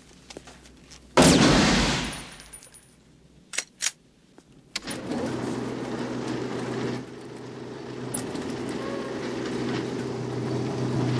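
A single handgun shot about a second in, ringing off the walls of an indoor firing range. From about five seconds in, a steady electric hum with a low held tone runs on: the motorized target carrier pulling the shot vest back along its overhead track.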